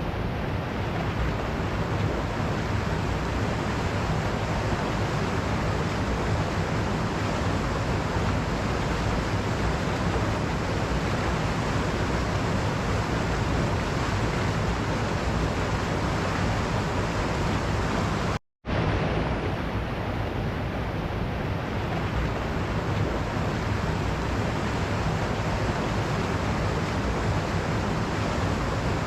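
Waterfall rushing: a steady, dense roar of falling water. It cuts out for a split second about two-thirds of the way through.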